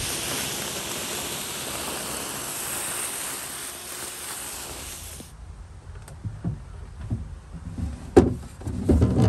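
Vacuum running with a steady hiss as its hose nozzle sucks up loose flakes of old finish from a wooden dresser top, cutting off about five seconds in. Then a dresser drawer knocking as it is handled and pulled out, with a sharp knock a little past eight seconds in and a few more near the end.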